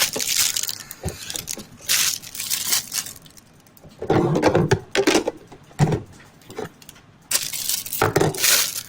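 Plastic bag and paper carton packaging being handled, crinkling and rustling in irregular bursts with a few sharp clicks.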